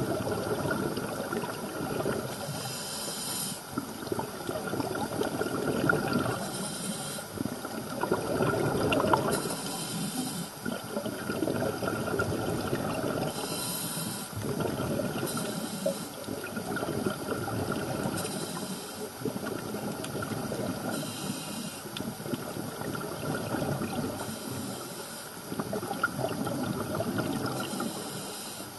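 Scuba regulator breathing heard underwater: a hiss on each inhalation and gurgling exhaust bubbles on each exhalation, repeating every few seconds.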